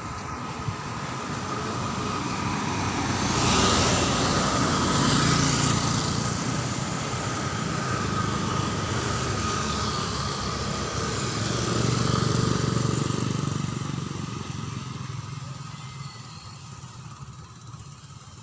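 Motor traffic passing on an asphalt road: a vehicle goes by about four seconds in, then a motor scooter passes with its engine and tyres rising and fading away toward the end.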